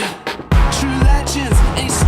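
Background music with a heavy bass beat and a gliding vocal line; it drops out briefly at the start and comes back in about half a second in.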